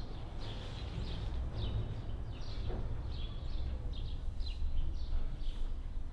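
Small birds chirping outdoors, short high chirps repeating about twice a second, over a steady low rumble.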